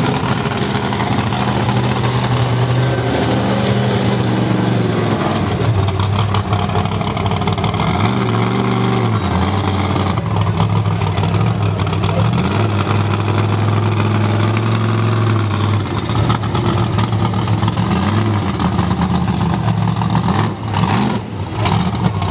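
Monster truck engine running loud and revving, its pitch rising and falling several times as the truck drives across dirt and climbs onto crushed cars.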